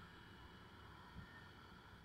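Near silence: faint, muffled wind and road noise of a moving motorbike, with one light thump about a second in.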